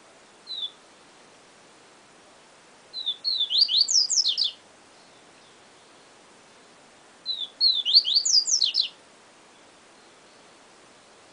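Papa-capim (Sporophila seedeater) singing its 'siu siu professor' song: a short high note about half a second in, then two quick phrases of high, steeply rising and falling whistled notes about four seconds apart, over a faint steady hiss.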